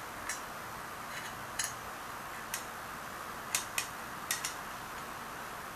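Thin stainless steel plates of an HHO cell module clicking lightly against each other and their screws as a neutral plate is fitted onto the stack. There are about seven short, scattered ticks over a steady background hiss.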